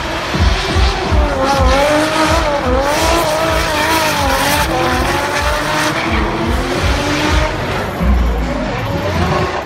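Drift car engines running at high revs, their note wavering up and down as the throttle is worked, with tyres screeching through the slide. A steady music beat thumps underneath.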